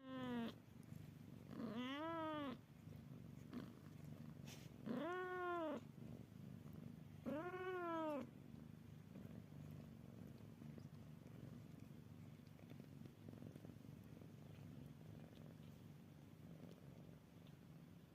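Domestic cat meowing four times in the first eight seconds or so, each call rising then falling in pitch, over a steady low purr that carries on after the meows stop.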